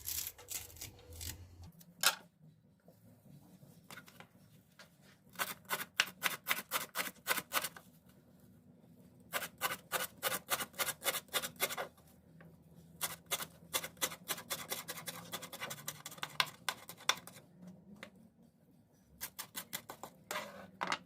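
Knife finely chopping parsley on a cutting board: quick, even strokes about five or six a second, in runs of a few seconds with short pauses between them.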